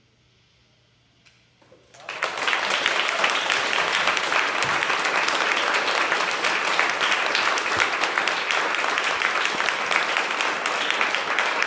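Near silence, then a few scattered claps about a second and a half in, and a small audience breaking into steady applause from about two seconds on.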